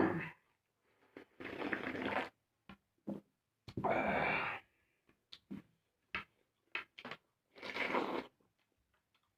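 Someone eating on close microphone: three noisy slurps, each up to about a second long, with short wet clicks of chewing between them.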